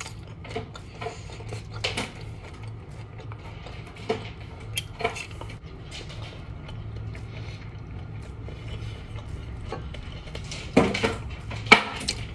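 Close-up eating sounds: crunching and chewing on crispy homemade russet potato fries and bites of a cheeseburger, with small clicks throughout. A couple of louder knocks or clinks, like dishes or cutlery on a plate, come near the end, over a low steady hum.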